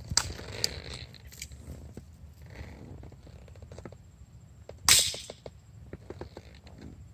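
BB gun shots: a sharp crack right at the start and a louder one about five seconds in, each a quick burst of air, followed by a few light clicks.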